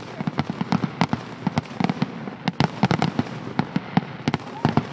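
Fireworks display bursting in a dense, irregular barrage of sharp bangs and crackles, several a second.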